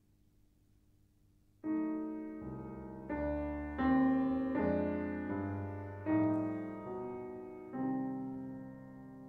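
Grand piano playing a slow passage of full chords after about a second and a half of near silence. Each chord is struck and left to ring and fade before the next.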